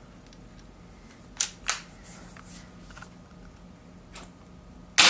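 A QB78 .22 CO2 air rifle handled and loaded, giving a few light clicks about a second and a half in, then one sharp crack of a shot near the end.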